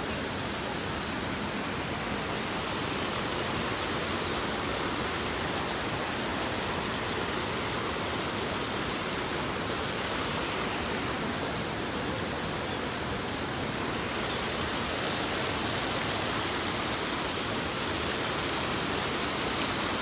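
Steady rushing noise, even in level, with no distinct events in it.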